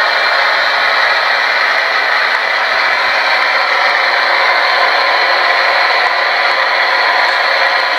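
Spirit box radio scanning and giving out a loud, steady hiss of static through its small speaker.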